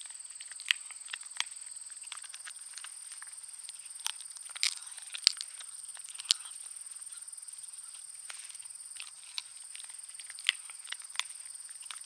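A Schnug (schnauzer/pug mix) chewing a bone: irregular sharp crunches and clicks, loudest about halfway through. Under it runs a steady high-pitched insect drone.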